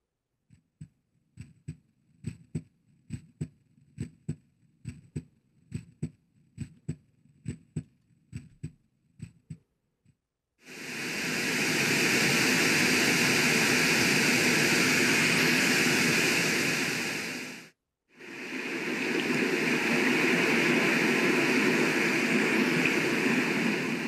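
Hatch Rest Mini sound machine stepping through its built-in soothing sounds. First comes a soft pulse of low thumps that arrive in pairs about once a second. About ten seconds in it switches to a loud, steady rushing noise, which cuts out briefly and starts again as the next noise sound.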